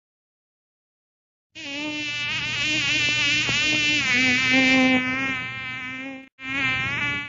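Buzzing insect sound effect, like a fly or mosquito, starting abruptly about a second and a half in with a wavering pitch, breaking off briefly near the end and starting again.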